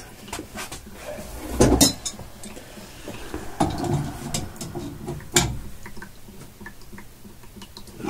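Metal hand tools (screwdrivers and pliers) clinking and clattering as they are handled, with two louder knocks, one about two seconds in and one about five seconds in.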